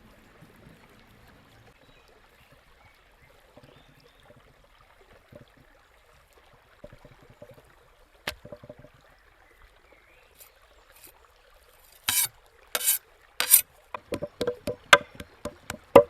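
Faint trickling water and scattered small clicks, then three loud short noises about twelve seconds in, followed by a quick run of sharp knocks on wood.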